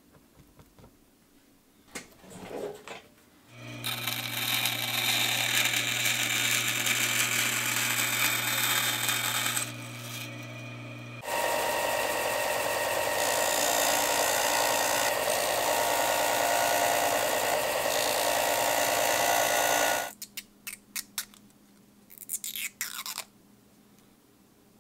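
Power tool running steadily from about four seconds in. From about eleven seconds in it is a bench disc sander grinding a small clear plastic piece held against its disc. It cuts off sharply near twenty seconds, followed by a few light clicks of handling.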